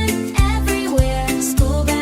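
Background music for a children's song: a bright melody over a steady beat of thumps about every 0.6 s.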